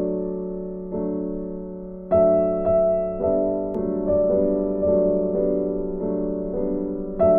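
Background piano music: slow notes and chords, each struck and left to fade.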